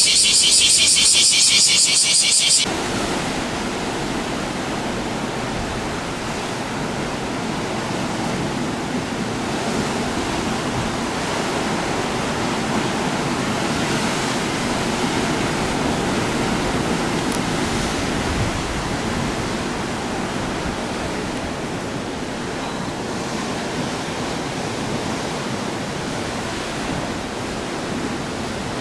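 A high, pulsing cicada chorus cuts off abruptly about two and a half seconds in. It gives way to the steady rush of rough surf breaking against rocks.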